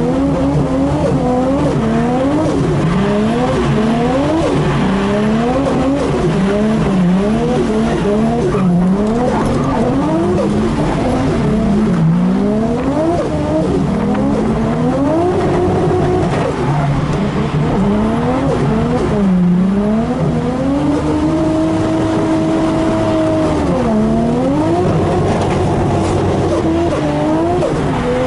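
Nissan Skyline R33's turbocharged RB25DET straight-six, heard from inside the cabin, revving up and down in quick swings under throttle during a drift run. Past the middle the revs are held steady for a couple of seconds, then dip and swing again.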